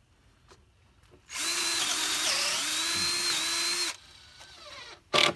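Power drill driving a long timber lock screw into rough-cut rafter lumber: a steady whine for about two and a half seconds, dipping briefly in pitch partway as the screw bites. A couple of sharp knocks follow near the end.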